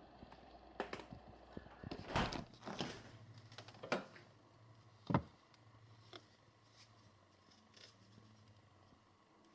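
Scattered clicks, knocks and short scrapes of things being handled, about a dozen in all, the loudest a single knock about five seconds in; fewer and fainter in the last few seconds.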